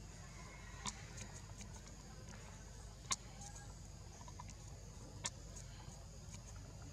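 Forest ambience: a steady high-pitched insect drone over a low rumble, broken by three sharp clicks about two seconds apart.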